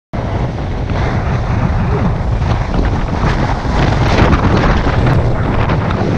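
Loud wind buffeting the microphone aboard a sailing yacht heeled over in strong wind, mixed with the rush of breaking seas and water along the hull. It cuts in abruptly at the start and stays a steady, heavy roar.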